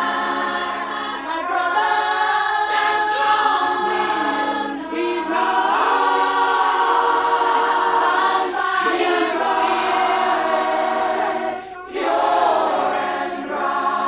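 A choir singing long held chords as part of a soundtrack, with a brief drop about twelve seconds in.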